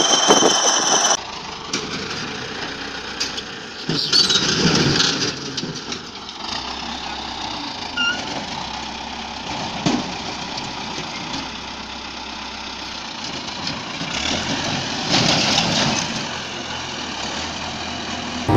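Diesel engines of a crawler tractor and a dump truck running as the tractor shoves the mud-stuck truck. The engine noise swells louder twice. A louder sound with a high steady whine cuts off about a second in.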